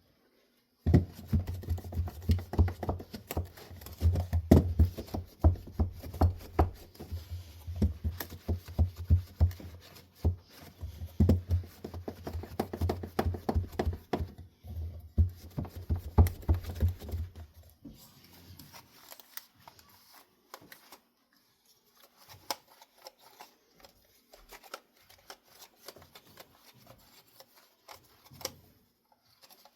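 Dense, irregular rubbing, scraping and knocking of hand work on hard objects, starting about a second in and stopping after about seventeen seconds; after that come only scattered faint clicks.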